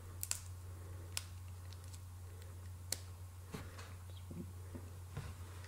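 A few faint clicks and small handling sounds as a cigar punch built into a butane lighter is pressed into the cap of a cigar, over a steady low hum.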